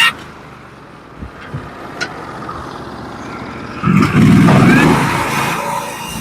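Norwood HD36v2 portable bandsaw mill running. It is quieter at first with a few knocks, then about four seconds in its engine comes up loud with a low rumble and rising whine.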